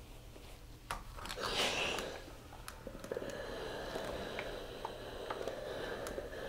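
Cotton shirt fabric rustling as it is folded on a pressing board, with a louder rustle about one and a half seconds in, then a household iron sliding over the cloth from about three seconds in, pressing under the raw edge of the collar stand: a soft, steady scuffing.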